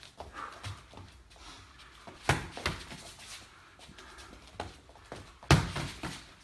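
Boxing gloves smacking on contact during close-range sparring: a few sharp slaps a little over two seconds in, and the loudest one about five and a half seconds in.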